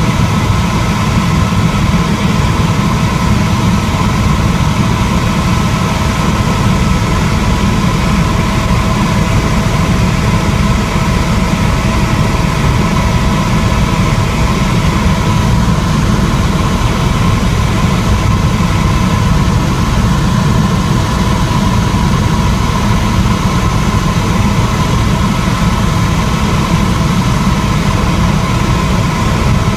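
Tour helicopter in flight heard from inside the cabin: a steady, loud low rotor and engine rumble with a few steady whining tones over it.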